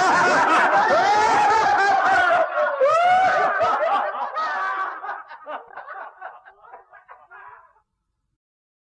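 Laughter, loud at first, then trailing off in short pulses until it stops about a second before the end.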